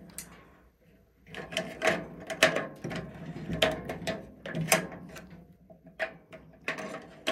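AA batteries being pressed into the spring-contact battery holder on the inside of a Barska biometric safe's steel door: a run of irregular clicks and light taps starting about a second in.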